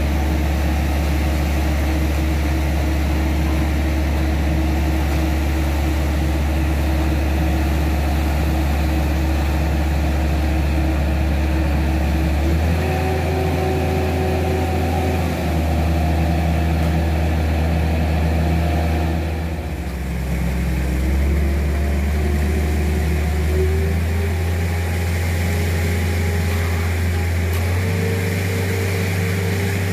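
Concrete mixer truck's diesel engine running steadily while it discharges concrete down its chute. Its engine speed shifts in steps, about twelve seconds in, again around twenty seconds, and near the end.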